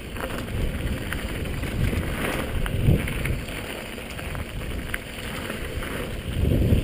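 Wind rushing over a helmet camera's microphone and the tyres of a Marin Quake 7.3 mountain bike rolling fast over a dirt trail, with scattered clicks and rattles from the bike. Two louder low thumps, about three seconds in and near the end, as the bike hits bumps.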